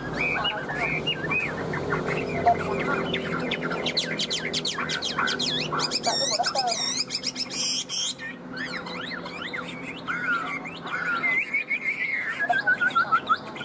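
Chinese hwamei (Melodious laughingthrush) singing a long run of varied whistled phrases, with a burst of rapid repeated notes in the middle and a falling series of notes near the end.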